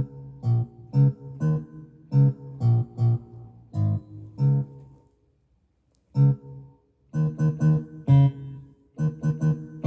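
Acoustic guitar strummed in a steady rhythm, about two strums a second. It stops briefly about five seconds in, then starts again with quicker strums.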